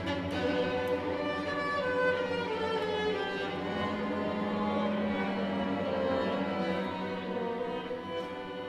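Solo violin playing a line of long held notes over a symphony orchestra's accompaniment, as in a violin concerto.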